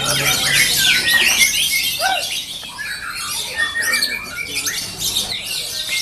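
Several white-rumped shamas singing over one another: a dense mix of whistled phrases, quick chirps and harsh notes.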